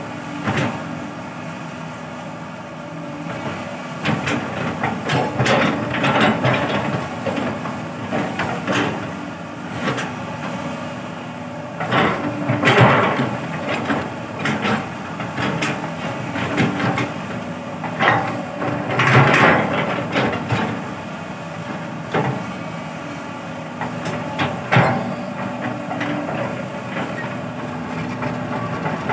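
Sumitomo hydraulic excavator's diesel engine running steadily while the bucket digs and scrapes into soil, with irregular metallic clanks and scraping bursts, the loudest about halfway through and again about two-thirds through.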